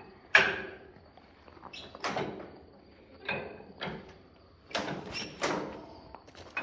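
A series of sharp knocks and clanks, about six at irregular intervals, some ringing briefly, as parts and tools are handled during work on the tractor.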